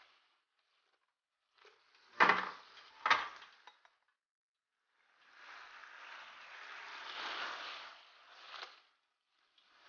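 Two sharp clanks of metal cookware about a second apart, then a few seconds of chili-shrimp sauce sizzling in a frying pan, ending with a small click.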